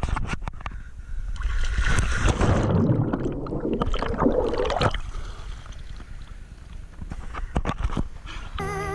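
Swimming-pool water splashing and bubbling around a GoPro as it is dipped under, loudest between about one and a half and five seconds in. Scattered knocks come before and after it. Music begins just before the end.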